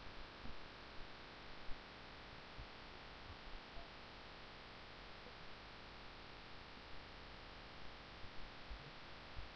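Steady microphone hiss with a low mains hum, broken by a few faint short clicks about half a second, one second and one and a half seconds in, and again near the end.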